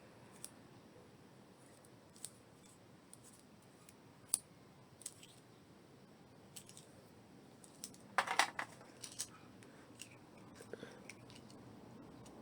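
Scattered light clicks and taps of small plastic sewing-machine accessories being handled, with a short cluster of louder clicks about eight seconds in.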